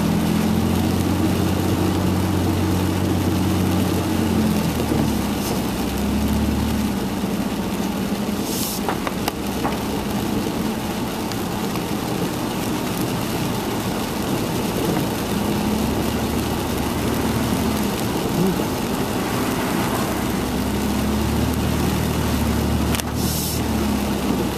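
Car driving on a wet road, heard from inside the cabin: a steady engine hum whose pitch shifts a few times over a constant tyre hiss. Two brief louder hissing swishes come about nine seconds in and near the end.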